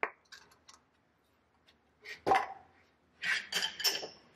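A few short squeaky clicks as cutting oil is applied to a bronze rod at a Ridgid ratcheting thread die. A sharp click comes a little past two seconds in, and the loudest cluster of squeaks comes near the end.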